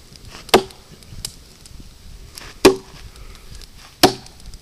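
Chopping: three sharp strikes about a second and a half apart, each with a brief ringing tone, plus a fainter knock between the first two.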